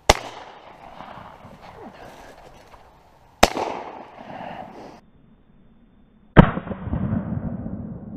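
Three shotgun shots fired at passing wood pigeons, about three seconds apart; each is a single sharp report that fades quickly, and the last is followed by a couple of seconds of rustling noise.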